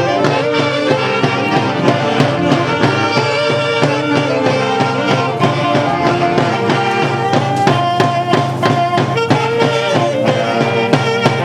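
Huancayo orquesta típica playing a folk tune: reed-wind and violin melody over a steady, even beat.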